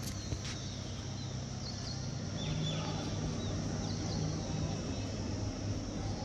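Outdoor ambience: a few short falling bird chirps over a steady high insect drone and a low steady hum.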